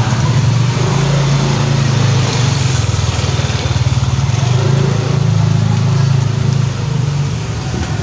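Motorcycle engine running close by, a steady low drone that eases off a little near the end.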